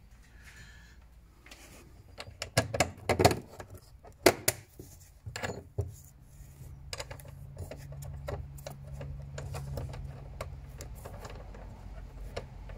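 Clicks and knocks of a bolt and hardware being handled and set into a mounting hole in the floor of a storage box, loudest about two to four seconds in. From about halfway on a low steady hum sits underneath, with lighter ticks over it.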